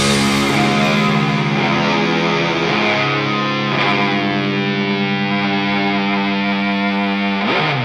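Doom metal music: a distorted electric guitar with effects holds long sustained chords without drums. The chord changes about four seconds in, and there is a sliding pitch near the end.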